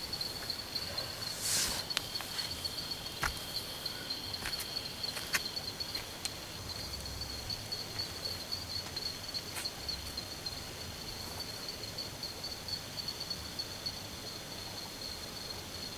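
Night insects, crickets or similar, trilling steadily in a high, finely pulsing drone in the forest. A few sharp taps and a brief rustle break in during the first six seconds.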